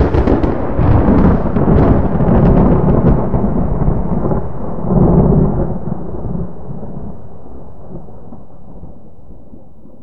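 Close thunderclap: sharp crackling over a deep rumble for the first few seconds, a second swell about five seconds in, then a long low rumble slowly fading away.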